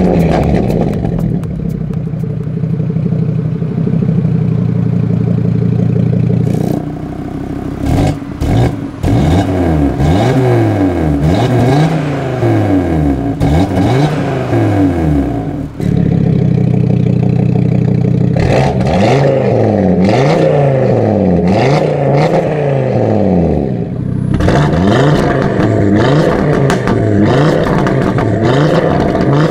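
A 2016 Audi TT RS's turbocharged 2.5-litre five-cylinder, breathing through an aftermarket EGO-X exhaust, revved while parked. It holds a steady raised note for several seconds, then gives a series of quick blips about every second and a half, the pitch rising and falling each time, holds steady again, blips again, and holds a steady, brighter note near the end, with a few sharp cracks among the blips.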